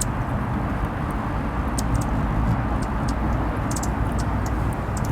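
Hummingbirds giving many short, sharp high-pitched chip calls over a steady low rumble.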